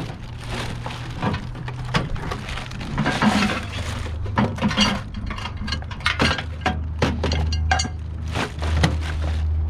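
Irregular knocks, clunks and clinks of hard objects being handled and shifted about in a pile of discarded household items, over a low steady hum.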